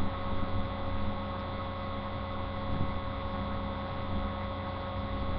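Steady electrical hum with several fixed tones over a low hiss, the kind a webcam's built-in microphone picks up. Nothing else stands out.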